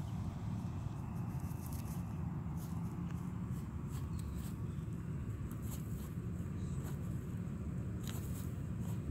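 Armadillo rooting and nosing through dry grass and leaf litter, making irregular rustles and crackles, over a steady low rumble.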